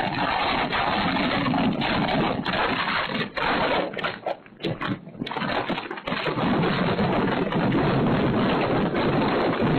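Strong gusty wind buffeting the microphone as a loud, rushing noise. It breaks off in a brief lull about four seconds in and picks up again about two seconds later.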